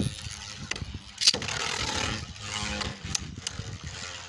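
Beyblade Burst spinning tops whirring and scraping across a plastic stadium floor, with several sharp clacks as they collide, the loudest about a second and a quarter in.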